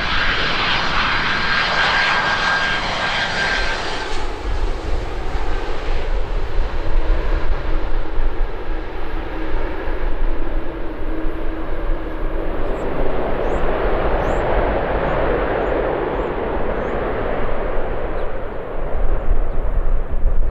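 Boeing 767-200 cargo jet landing. A high engine whine with a steady high tone runs for about four seconds and then drops away, leaving a broad jet roar that swells again in the second half.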